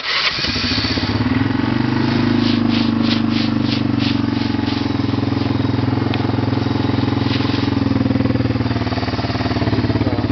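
Honda ATV engine catching on a cold start and settling into a steady idle. A quick run of light clicks comes a couple of seconds in.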